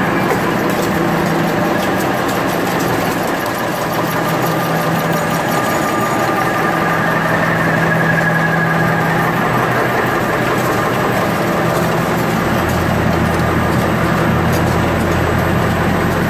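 Automatic napkin folding and packing machines running steadily, a dense mechanical rattle of rapid ticks over a low hum. A deeper hum joins about twelve seconds in.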